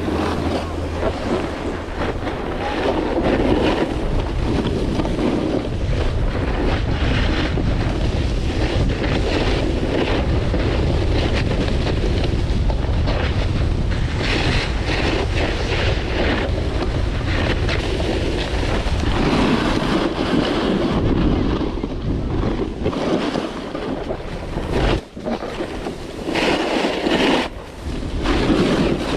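Wind buffeting the microphone of a skier's camera during a downhill run, mixed with the hiss and scrape of skis on hard, mostly artificial groomed snow. The noise swells and eases as the skier turns.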